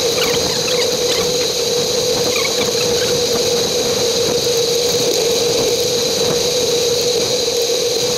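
Steady wind and road noise from a bicycle ride picked up by a GoPro Hero 3 action camera, with a constant low hum and a higher steady whine.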